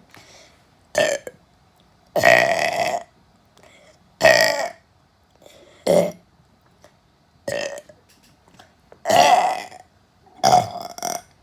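A person burping over and over: about seven separate burps with short pauses between, some brief and a couple drawn out to nearly a second.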